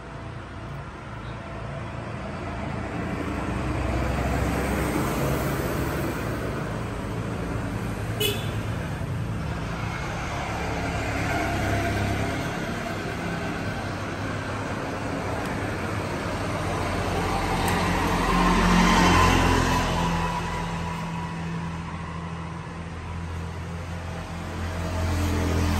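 Road traffic going by, a rumble of several vehicles that swells and fades in turn, loudest about two-thirds of the way through. A single sharp click comes about eight seconds in.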